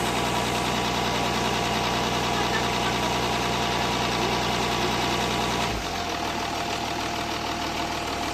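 Jaguar S-Type 2.7-litre V6 diesel idling steadily, with a noise the owner suspects may be a bottom-end knock from spun bearings. The deepest part of the hum drops away about six seconds in.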